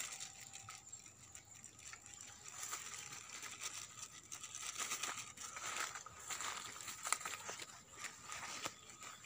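Irregular rustling and crackling of dry leaves and undergrowth, with scattered small clicks and one sharper click about seven seconds in. A faint steady high-pitched tone runs underneath.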